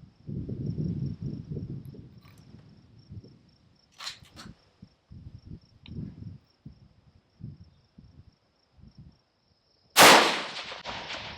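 Wind buffeting the microphone in gusts, a couple of sharp clicks about four seconds in, then a single loud rifle shot near the end that rings off slowly. A steady high insect drone runs behind it all.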